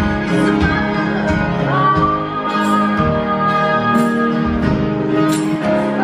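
Live acoustic guitar and grand piano playing a slow song, with a woman singing.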